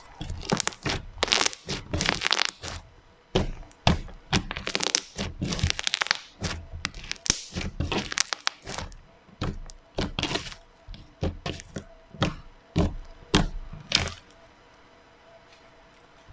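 Thick pink slime squeezed, folded and pressed between the hands, giving irregular bursts of sticky clicks and pops. The sounds stop about two seconds before the end.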